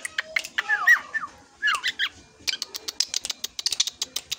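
Young drongo singing: sharp clicks and chips with a few downward-slurred whistles in the first two seconds, then a fast run of clicking chatter.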